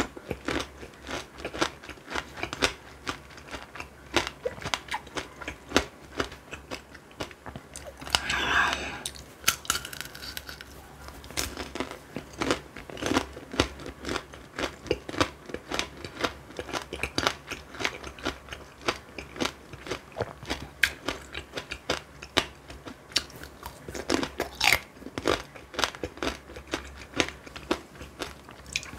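Tanghulu being bitten and chewed: the hard candied-sugar shell on the fruit cracking and crunching in many quick, irregular bites.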